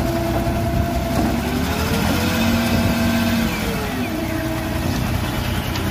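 Dump truck's engine running under load as its hydraulic tipper bed raises to dump a load of soil; the engine pitch rises about a second in and falls back shortly after the middle.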